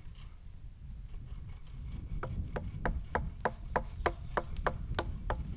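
A hand tool striking wood in quick, even blows, about three a second, each with a short ring. The strikes start about two seconds in.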